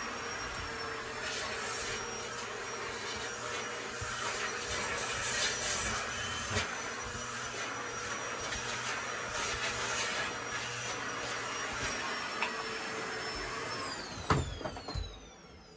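Vacuum cleaner running steadily with a high whine and small rattles of things being sucked up. It is switched off with a click near the end, and its motor winds down with a falling whine.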